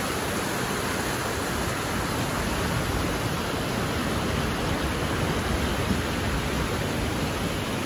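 Mountain creek rushing over rocks and small cascades: a steady wash of water.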